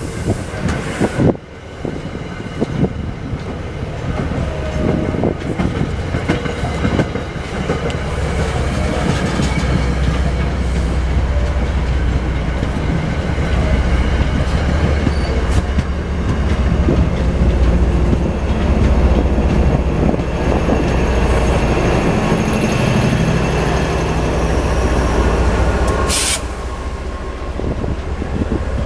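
MBTA train passing, a loud steady rumble that builds over the first several seconds and holds, with a sharp clank near the end. Wind buffets the microphone.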